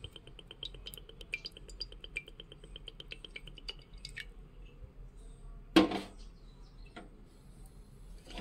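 Metal kitchen utensils being handled: a fast, even run of light ticks for the first few seconds, then one loud metal clank with a short ring about six seconds in, and a few faint clicks after it.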